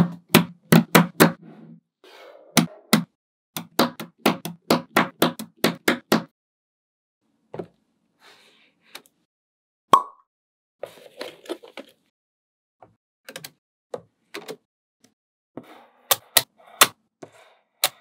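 Small magnetic balls clicking and snapping together in quick runs of sharp clicks, with pauses and faint rustling between. A single short ringing ping about ten seconds in.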